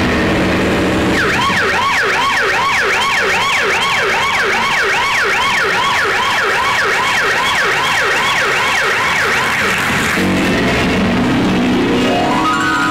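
Recorded emergency-vehicle siren sound effect: a fast yelping wail of about three rises and falls a second. It starts about a second in, stops near ten seconds, and is followed by a long rising glide near the end.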